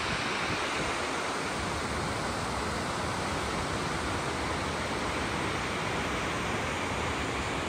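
Steady rushing of water pouring over the weir on the Vltava river, an even, unbroken rush.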